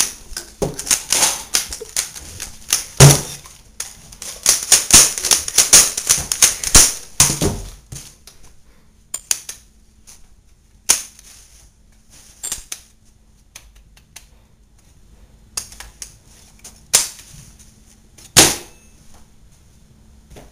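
Gunshot-like pops in a fast, dense string for the first several seconds, then scattered single shots and knocks with gaps of quiet between.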